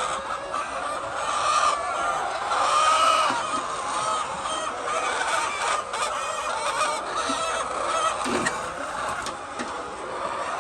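A flock of hens clucking and calling without pause, many voices overlapping.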